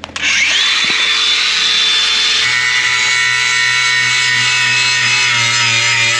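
Cordless power tool motor spinning up with a quick rising whine, then running steadily at full speed, its tone shifting slightly about two and a half seconds in as it works.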